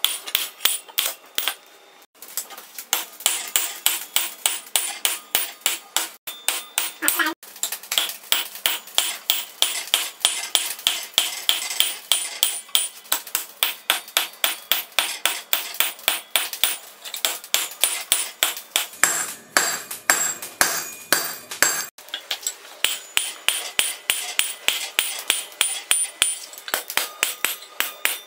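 Hand hammer striking hot spring steel on an anvil while forging a knife blank. The blows come in a quick, steady rhythm, about two to three a second, and each one rings metallically. There are a few short breaks.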